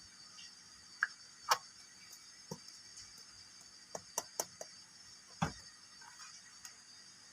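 Small plastic toy kitchen pieces being handled: a string of light clicks and taps, with a quick run of four about four seconds in and a duller knock about a second later.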